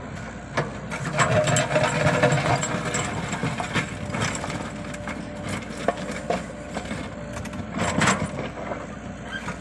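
Komatsu PC75UU excavator at work: engine running with a rattling, mechanical clatter and scattered knocks. It grows louder about a second in, and there is a sharp knock near the end.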